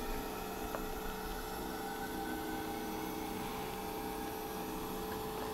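Battery-electric Scania truck standing with its systems running, giving a steady electric hum of several constant tones over a faint hiss.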